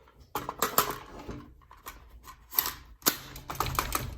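Clicks and rattles of an AR-15 rifle being handled with an empty magazine, the metal parts clacking, in clusters just under a second in and again from about three seconds in.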